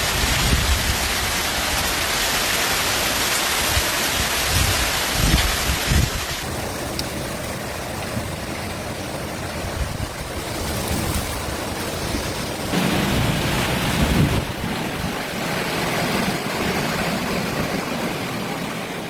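Thunderstorm: heavy rain with strong wind gusts buffeting the microphone. The sound changes abruptly about six and again about thirteen seconds in, as one storm recording gives way to another.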